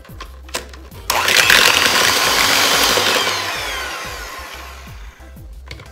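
Electric hand mixer running, its beaters creaming softened cream cheese and sugar in a plastic bowl. It starts suddenly about a second in, then fades gradually and stops near the end.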